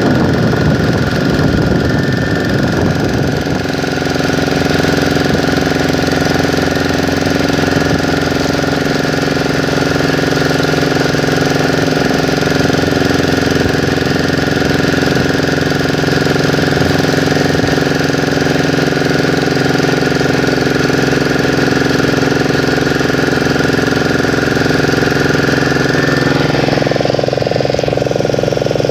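The engine of a wooden motorboat running steadily under way, a constant droning note with water rushing along the hull; the engine note shifts slightly near the end.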